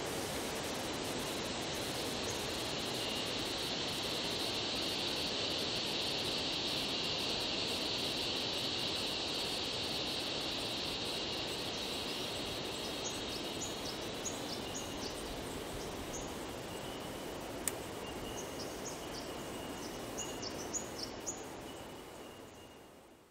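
Bush ambience: a steady insect drone over an even hiss, with short bird chirps coming in about halfway. There is one sharp click, and the whole fades out at the end.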